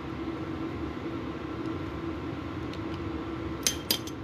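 A steady mechanical hum, like a fan running, with two sharp metallic clinks close together near the end, as metal parts knock together while stuck brake caliper slide pins are worked apart.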